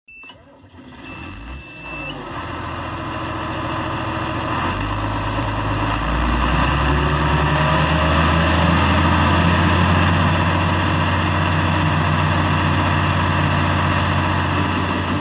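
Large diesel engine building up in revs over the first several seconds, then running steadily and loud, with a steady high warning beep near the start.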